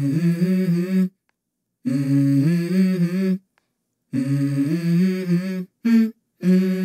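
A voice humming a short wordless melody with no instruments. The same phrase comes about three times, each one cut off sharply by a gap of silence, with a brief snippet before the phrase starts again near the end.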